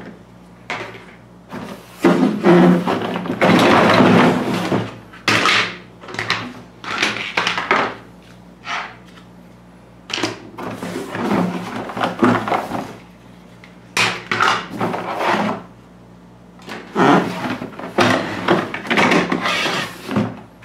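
Plastic toy track pieces and parts being pulled out of a cardboard box and set down, rustling and clattering in irregular bursts with short pauses.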